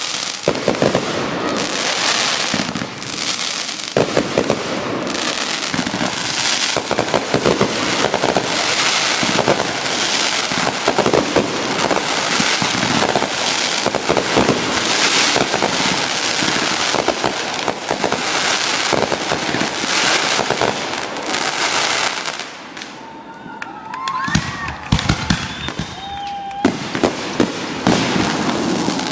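Fireworks display: a dense barrage of crackling bursts and bangs for about twenty seconds, then it thins out to separate bangs with a few rising whistles near the end.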